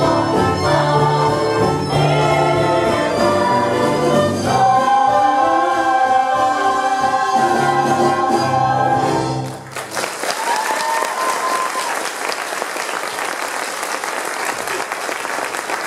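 A large stage chorus sings over instrumental accompaniment, closing on a long held note that cuts off sharply about ten seconds in. The audience then breaks into sustained applause.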